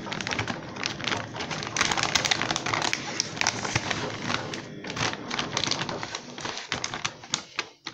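Plastic bag of powder laundry detergent crinkling and crackling as it is gripped and turned over in the hands. It is a continuous run of small crackles, with a few brief pauses in the last couple of seconds.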